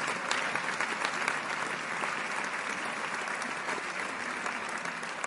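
A large audience applauding steadily, a dense wash of many hands clapping that eases off slightly near the end.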